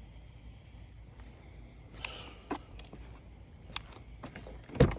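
A few scattered sharp metallic clicks and clinks from metal objects being handled, with a louder knock near the end, over a faint low hum.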